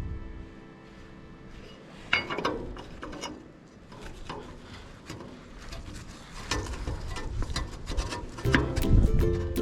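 Irregular mechanical clicks and knocks, denser toward the end, with music underneath.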